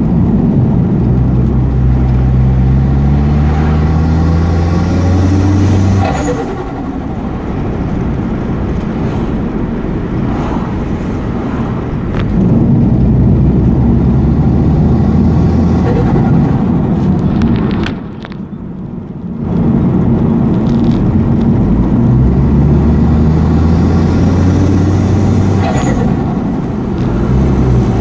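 Mitsubishi Airtrek's turbocharged engine accelerating hard three times, rising in pitch each time. Each pull ends in a sudden lift-off with a short burst of turbo flutter, about six seconds in, at eighteen seconds, and near the end.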